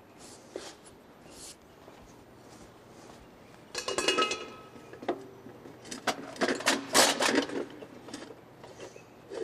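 Metal kitchenware and utensils being handled and set down: a few clinks with brief ringing about four seconds in, then a busier run of clanks and knocks a couple of seconds later.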